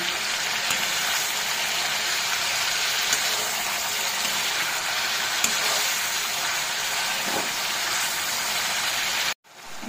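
Marinated chicken pieces sizzling steadily as they fry in butter and oil in a kadai, partly cooked. The sizzle cuts off abruptly near the end.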